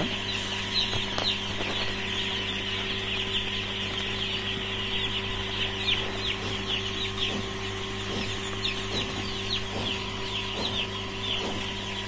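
A flock of hundreds of three-day-old chicks peeping without pause: a dense chorus of short, high, falling cheeps. A steady low hum runs underneath.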